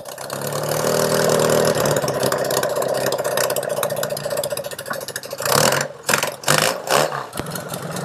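Yamaha XS650 chopper's parallel-twin engine idling steadily just after being kick-started, with a few short louder bursts over its last few seconds.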